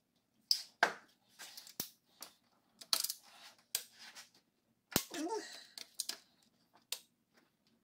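Irregular sharp metallic clicks and clinks, about seven, from a socket wrench and star socket being worked on the cylinder-head bolts as they are tightened.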